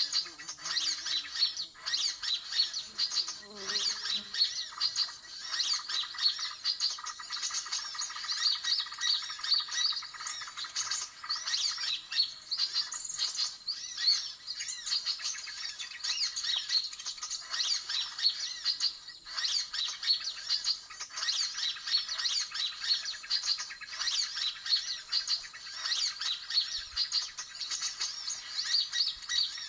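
Dense, unbroken chattering and chirping of many small birds, a 'suara ribut' lure recording of agitated mixed bird calls played to draw sunbirds in to the trap.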